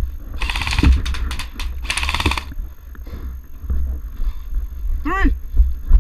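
Two short bursts of rapid full-auto fire from an airsoft electric gun (AEG), each about half a second of fast clicking shots, the first about half a second in and the second about two seconds in, with a few single clicks between them. Near the end comes a brief shouted call.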